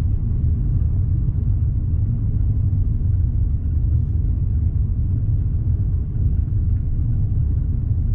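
Car driving along a country lane, heard from inside the cabin: a steady low rumble of engine and road noise.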